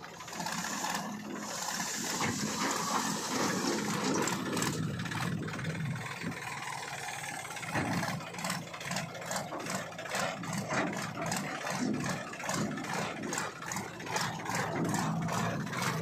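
A Mahindra 275 DI tractor's three-cylinder diesel engine running steadily, with more uneven surges in the second half.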